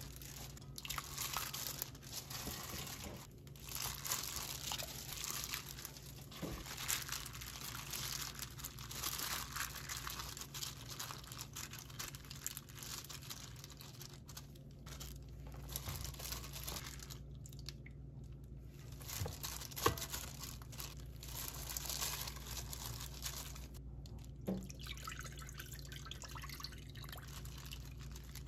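A hand in a plastic glove mixing and squeezing pork rib pieces in a wet soy marinade, in irregular bouts of wet squelching and crinkling glove, with short pauses and one sharper knock about two-thirds of the way in.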